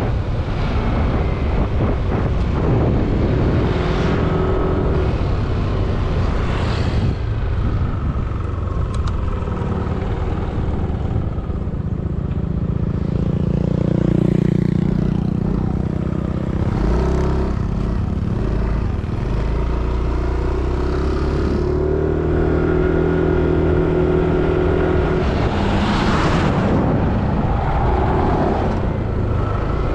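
Yamaha motorcycle engine running steadily on the move, with wind and road noise. About 26 seconds in, a truck passes close by with a brief rushing swell.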